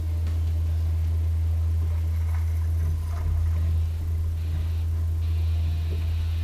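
Steady low hum from a bass boat's bow-mounted electric trolling motor. A faint higher hiss comes and goes in the last two seconds.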